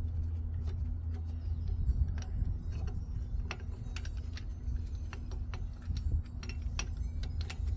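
Irregular metal clicks and clinks as a brake caliper piston compressor tool is handled and its screw backed out, over a steady low hum.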